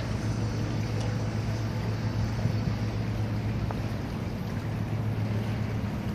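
Steady low drone of a running engine, a constant hum under an even rushing noise, unchanging throughout.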